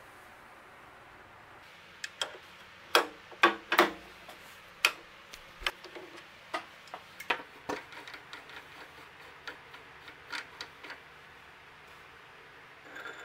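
A wrench is fitted to the steel hex nut that holds a carbide-tipped saw blade on a lathe arbor, and the nut is loosened and taken off, making sharp metal clinks and knocks. The loudest clinks come a couple of seconds in, followed by a run of lighter, irregular clicks.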